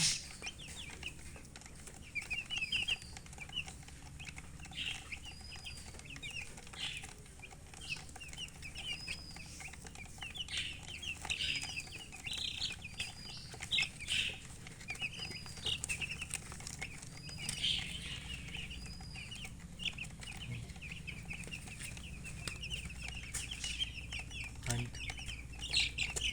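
Baby chicks peeping: many short, high calls in quick runs and single arching peeps, repeated throughout.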